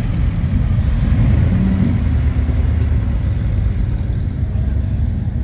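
A car engine running with a steady low rumble.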